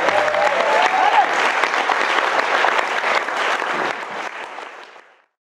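A room of guests clapping, a dense, continuous applause that fades out over the last second or so.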